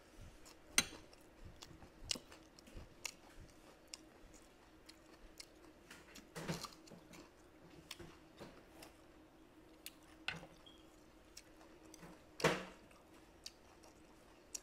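Close-miked chewing of braised basa fish, rice and raw vegetable greens, with crisp crunches and small wet mouth clicks scattered irregularly, and a few louder bites about a second in, midway and near the end.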